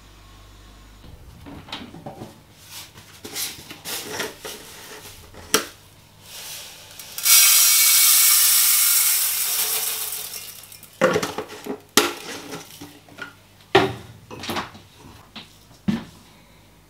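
Dry grains poured from a glass jar into a metal rice-cooker pot: a loud hiss lasting about three seconds midway, fading as the pour ends. Around it, scattered clinks and knocks of the glass jar and metal pot being handled.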